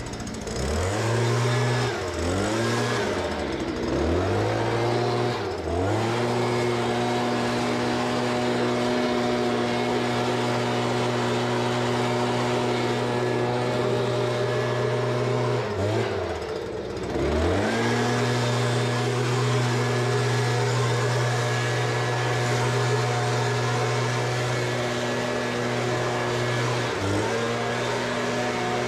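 Handheld leaf blower running at high throttle, with a steady engine note. The throttle is let off and opened up again several times in the first six seconds, once more around sixteen seconds, and briefly near the end.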